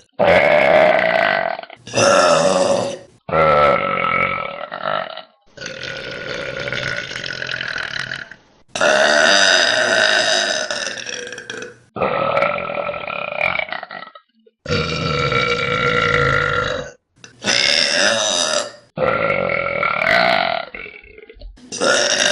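Young women burping, a string of about ten long, loud, deep belches, each one to three seconds long and cut off sharply as the next begins.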